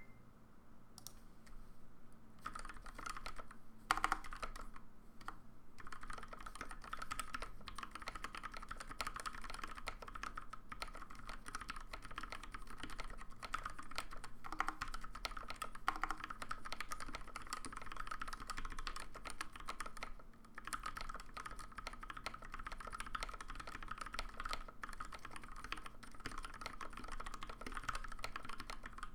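Typing on a custom Alice-layout mechanical keyboard with lubed Gateron Pink switches on 72 g springs and PBT keycaps: a steady, fast stream of keystrokes starting about a second in, with a few louder, deeper strokes and a short pause about two-thirds through.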